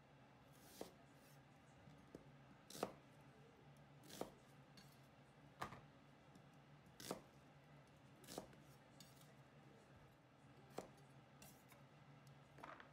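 Kitchen knife cutting onion and carrot on a hinoki wood cutting board. There are eight sharp single knocks of the blade on the board, one about every second and a half.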